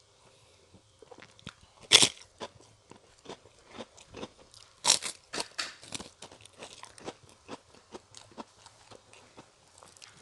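Crisp krupuk crackers being bitten and chewed close to a lapel microphone. There is a loud crack about two seconds in, another about five seconds in followed by a quick run of crunches, then softer scattered chewing crunches.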